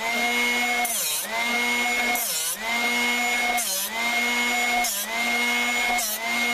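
Drill Doctor 500X drill-bit sharpener's motor running with a steady whine while a twist drill in its chuck is ground on the sharpening wheel. Roughly every second and a quarter the motor's pitch sags briefly and a short grinding rasp sounds as the chuck is turned and the bit's cutting edge is pressed against the wheel.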